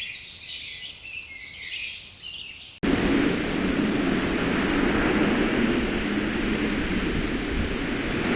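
Insects and birds chirping in high, busy calls, then, nearly three seconds in, an abrupt cut to a steady, louder rushing noise with no tones in it, like wind on the microphone or running water.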